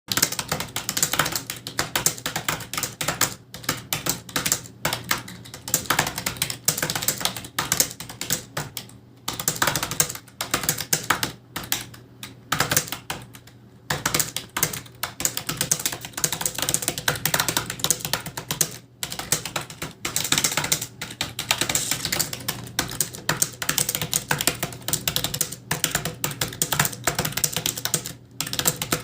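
Fast typing on a computer keyboard: a dense run of key clicks with a few brief pauses, as in a timed data-entry typing test.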